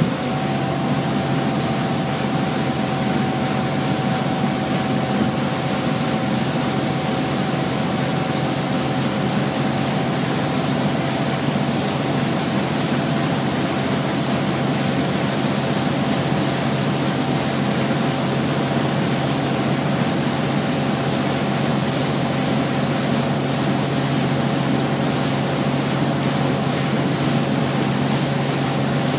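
Motorboat engine running steadily at towing speed while pulling a water skier, with an even hiss of rushing wake water and wind.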